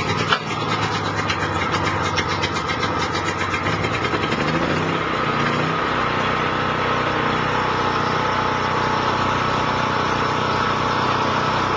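DuroStar DS4000S portable generator's 7 HP gas engine running steadily, just after being started.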